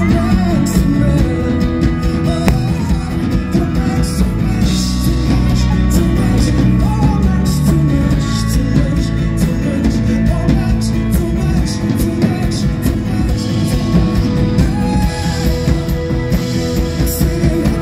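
Live band music from a strummed acoustic guitar, a bowed cello and a bass guitar, with a male lead voice singing.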